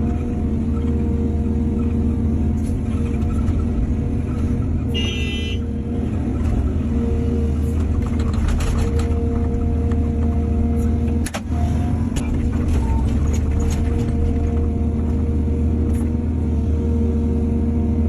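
Excavator's diesel engine running steadily at working revs. There is a brief high squeal about five seconds in, and a few knocks and clanks later on.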